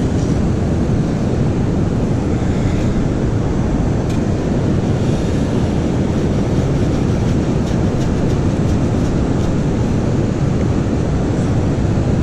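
Steady low rumble of wind buffeting the microphone, mixed with the wash of ocean surf.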